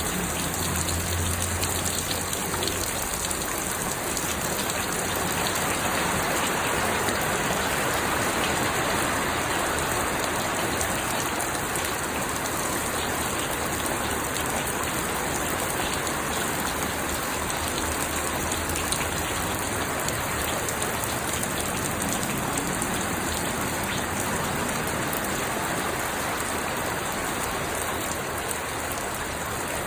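Steady rain falling and pattering on surfaces, an even hiss that holds at one level throughout.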